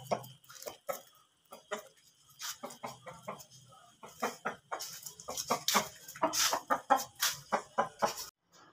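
Aseel rooster clucking in many short, sharp notes, bunched in irregular runs and busiest in the second half, then cut off suddenly near the end.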